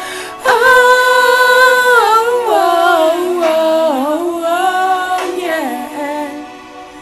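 Amateur singer's voice, without words, holding a high note and then sliding and wavering down through a run of lower notes, fading out near the end.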